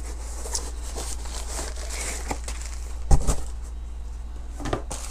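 A cardboard shipping box and a plastic bubble mailer being handled and unpacked: scattered rustling and light taps, with a louder knock about three seconds in and a smaller one near the end.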